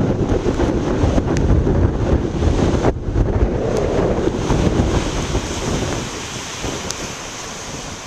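Heavy storm surf breaking and churning over shoreline rocks, with strong wind buffeting the microphone. It is loudest for the first six seconds, then eases somewhat.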